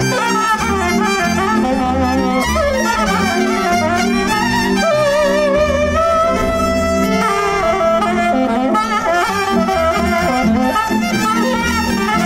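Maramureș folk dance music played by a small band: a violin carries a wavering, ornamented dance tune over steady chords and a low, pulsing beat.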